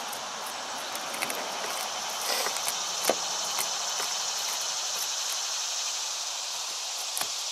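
A metal spoon scraping and clicking as it digs material out of a hole cut in a plastic boat hull, a few short scrapes and one sharper click about three seconds in, over a steady high chorus of insects.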